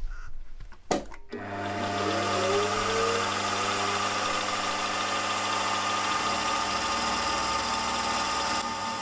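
A couple of knocks, then a benchtop milling machine starts up about a second and a half in, its spindle whine rising as it comes up to speed. It then runs steadily while an end mill cuts a step along a stack of mild steel rocker-arm blanks.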